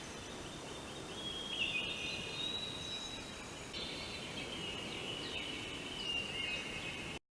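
Long-tailed shrike (cendet) calling: a run of high, fairly faint chirps and trills that carry on almost without a break, over a soft background hiss.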